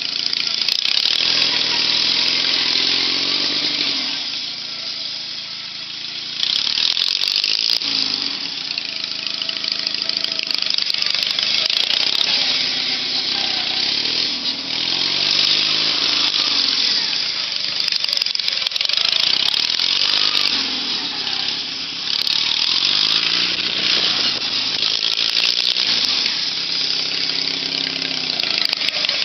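Riding lawn mower's small engine running under way, its pitch rising and falling over and over every few seconds as it is driven around.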